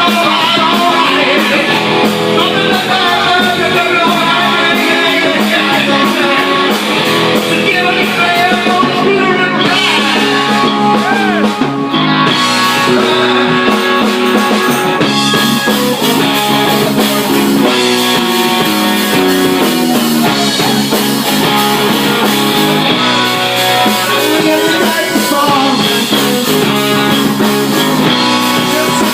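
A rock band playing, with electric guitar and singing.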